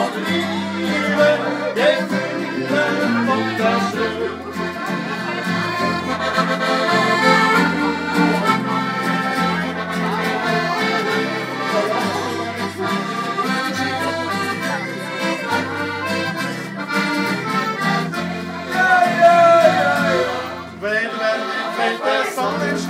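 Accordion playing the instrumental passage of a folk song between sung verses, its melody over a bass that alternates between two notes about once a second.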